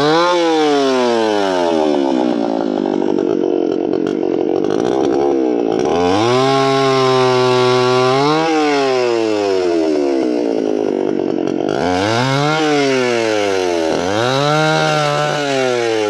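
Chainsaw cutting wood, the engine's pitch sagging as the chain bites into the wood and climbing again as it frees up, over and over, with the rasp of the cut under the low-pitched stretches.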